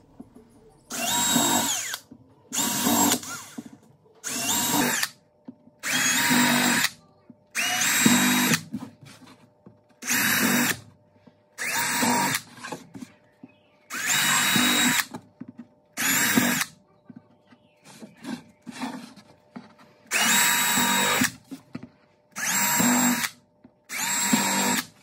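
Cordless drill with a countersink bit boring and countersinking screw holes in 12 mm plywood. It runs in about a dozen short spurts of roughly a second each, at a steady speed, and stops between holes.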